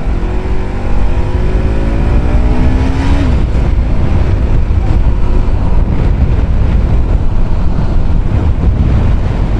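Motorcycle engine revving up as the bike accelerates, its pitch climbing for about the first three seconds, then heavy wind rumble on the microphone as it rides on at speed.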